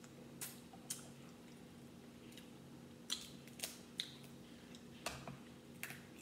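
Cooked crab-leg shells being cracked and snapped apart by hand, a series of short, sharp cracks, with wet squishing and chewing between them.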